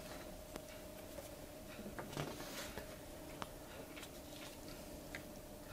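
Faint handling of paper sheets: a few light ticks and rustles as one printed page is taken away and another slid into place, over a faint steady hum.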